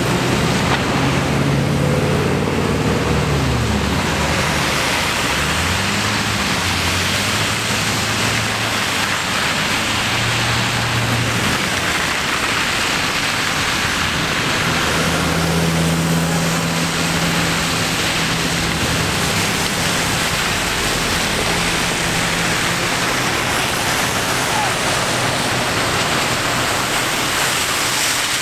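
Traffic on a wet, slushy street: a steady hiss of tyres on wet pavement throughout. A transit bus's diesel engine passes close by at the start, its pitch rising and stepping down several times in the first ten seconds as it pulls away through its gears, and another engine drones steadily a little past the middle.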